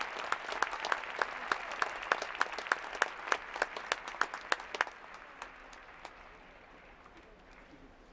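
Arena crowd applauding after an ice dance performance, with much of the clapping in unison at about three claps a second. The rhythmic clapping stops about five seconds in and the applause dies down.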